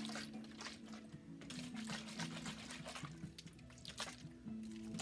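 Soft instrumental background music with steady held notes, with a few light knocks and taps from a drink can and glass being handled.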